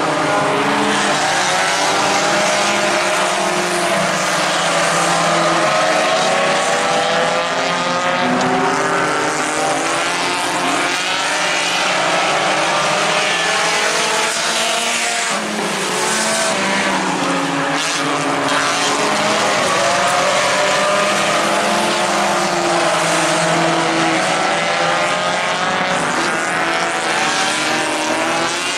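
A pack of compact-class race cars running laps on a dirt oval, several engines at once rising and falling in pitch as the cars accelerate off the turns and pass by.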